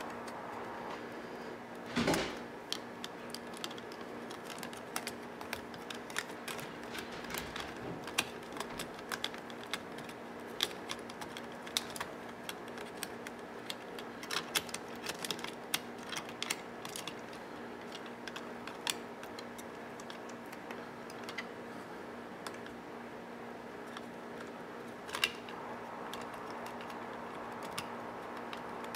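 Small parts of a cassette deck's tape transport mechanism being handled and fitted back together: many irregular light clicks and ticks, with a louder knock about two seconds in and another near the end.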